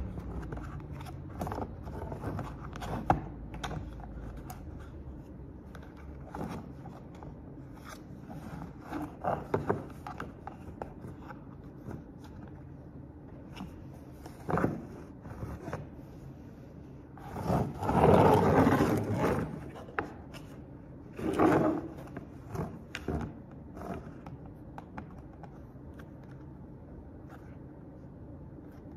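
Hard plastic parts of an Amazon Basics dumbbell rack being handled and fitted together: scattered clicks, knocks and scrapes, with a longer scraping burst about two-thirds of the way through and a shorter one soon after.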